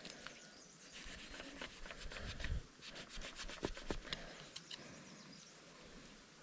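Faint scraping and rubbing of a hand tool on a wild apple branch, with scattered light clicks.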